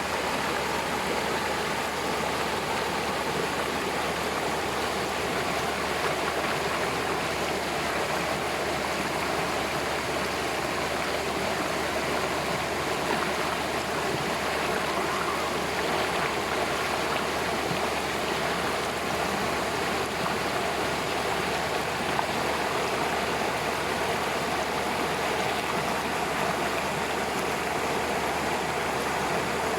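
Waterfall: water pouring and splashing over rocks in a steady, even rush.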